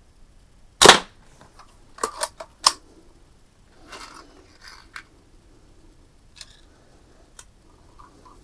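A Daisy 499B spring-powered BB gun fires once, about a second in, with a sharp crack. A quick run of three metal clicks follows about a second later, then softer handling noise and a couple of faint clicks as the lever is worked and the gun is readied for the next shot.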